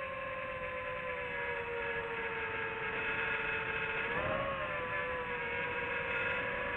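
FPV racing quadcopter's brushless motors whining, the pitch sagging slowly as the throttle eases, then rising and falling in a brief throttle punch about four seconds in.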